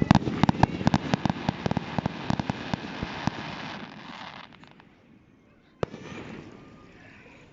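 Fish frying in hot oil: loud, dense sputtering and crackling that dies away about four and a half seconds in, followed by a single sharp pop a little over a second later.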